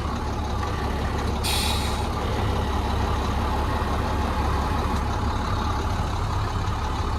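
International 4300 truck's DT466 diesel engine idling steadily, a constant low rumble. A short hiss of air cuts in about a second and a half in.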